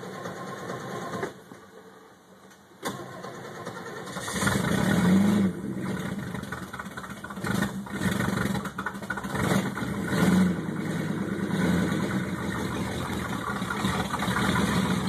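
1962 Lincoln Continental's 430 V8 being started after a Carter ABD carburetor rebuild: a short crank, a pause, then cranking again until it catches about four seconds in. It then keeps running, rising and falling in speed a couple of times as the throttle is worked.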